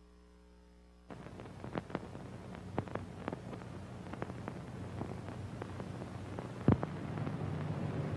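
Faint low hum, then from about a second in a slowly swelling hiss with scattered sharp crackles and clicks and one louder snap near the end: an intro sound effect building up to music.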